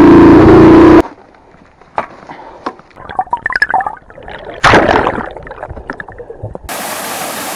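A dirt bike engine running loud for about a second, cutting off abruptly. It is followed by underwater gurgling with scattered clicks, a short loud rush of water about five seconds in, and a steady hiss near the end.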